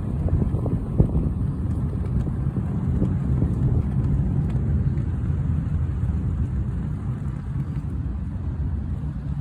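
Gusty wind buffeting the microphone, a loud steady low rumble with a few short sharp flutters in the first second or so.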